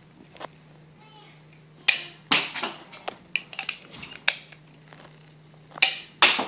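Sharp plastic clicks and snaps from a small spring-loaded toy dart pistol being handled and loaded with foam darts: several separate clicks, the loudest about two seconds in and again near the end.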